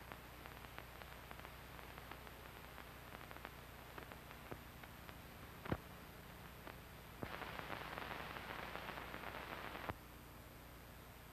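Noise of a worn archive film soundtrack: steady hiss and low hum with scattered crackles and pops, one sharper pop a little before the middle. A louder band of hiss switches in abruptly about seven seconds in and cuts off about three seconds later.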